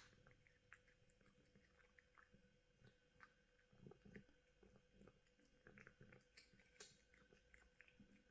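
Cat chewing small pieces of raw chicken: faint, irregular wet clicks and bites, a little busier partway through.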